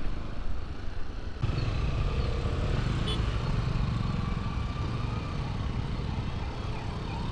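Motorcycle riding through city streets: a steady low rumble of engine and road, which gets louder about a second and a half in.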